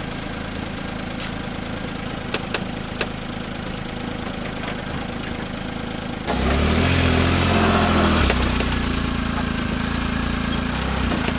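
2008 Smart Fortwo's three-cylinder petrol engine idling, with a few light clicks. About six seconds in it runs louder under load as the car reverses up onto car ramps.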